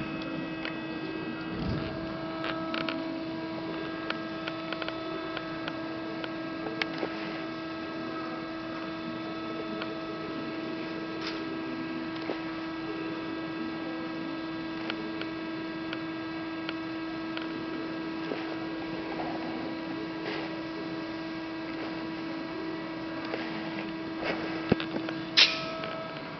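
Hydraulic press brake (LVD PPCB 150-ton CNC) running idle with a steady hum, with scattered light clicks and one sharp, louder knock near the end.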